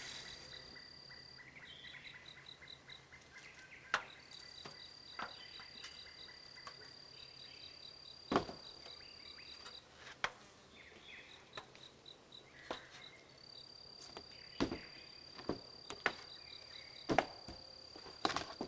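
Insects trilling and chirping: a steady high trill that holds for several seconds at a time, with fast, even chirps beneath it. About ten sharp knocks fall irregularly through it, the loudest about eight seconds in.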